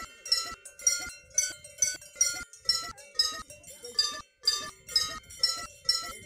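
A cow's collar bell clanking in a steady rhythm, about two strikes a second, as the lying cow's head is rocked while another cow licks it. There is a brief pause about four seconds in.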